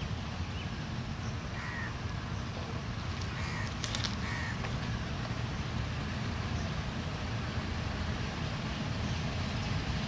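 1965 MLW RSD-34 2000 hp diesel locomotive engine running with a steady low rumble as it hauls a freight train toward the listener, growing slightly louder. A bird calls three times near the middle.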